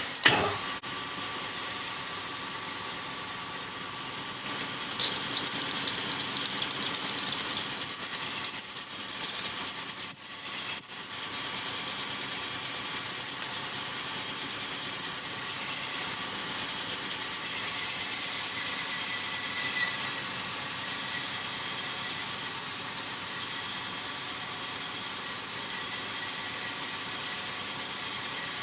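Cylinder hone spinning in a bore of a Perkins 248 diesel engine block, its stones grinding the cylinder liner with a steady high-pitched squeal and hiss. It is louder for a few seconds about a third of the way in.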